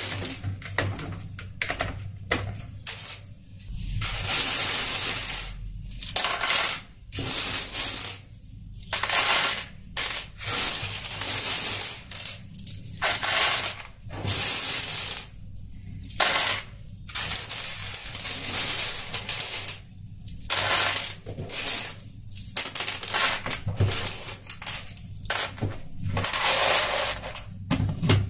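Plastic keycaps from a Razer Cyclosa membrane keyboard clattering as handfuls are scooped up and dropped into a plastic bowl. The clatter comes in repeated bursts with short pauses between them.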